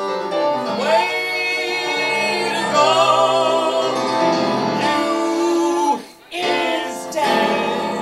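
Live song: female and male voices singing over an electric keyboard, the voices holding long notes with vibrato, with a short break about six seconds in.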